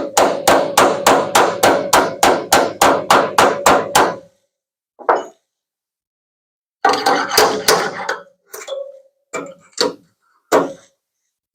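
Body hammer striking the steel sheet-metal of a pickup bed panel to knock down a ridge: a quick run of about fifteen blows at roughly four a second with a metallic ring, then a single blow, a short flurry and a few spaced blows.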